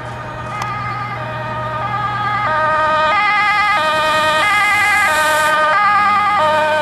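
Dutch fire engine's two-tone siren alternating between a low and a high note about every two-thirds of a second, growing louder over the first few seconds as the truck approaches on a priority run.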